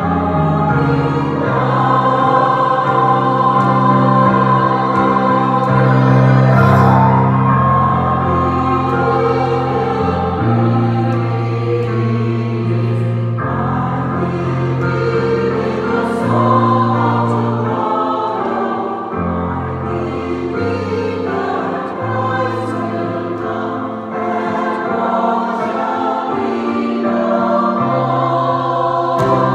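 Adult choir singing a choral piece in parts, over long held low notes that change every few seconds.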